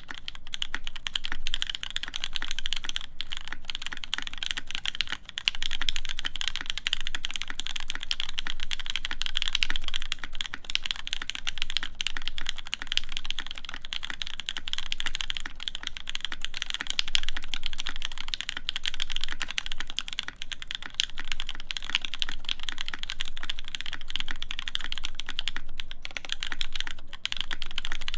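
Continuous fast typing on a mechanical keyboard with stock Gateron Cap v2 Milky Brown tactile switches in an aluminum plate, under GMK keycaps: a dense stream of keystroke clacks with no pauses. The typing starts abruptly at the very beginning.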